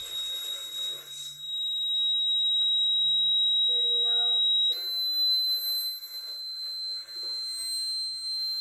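Steady high-pitched electronic test tone, like a signal generator's sine wave, used to set a pattern vibrating; it steps up in pitch at the start and again about halfway through.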